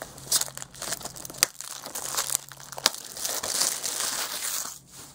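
Clear plastic shrink-wrap being torn off a DVD case and crumpled by hand: a run of crinkling and crackling with a few sharp snaps.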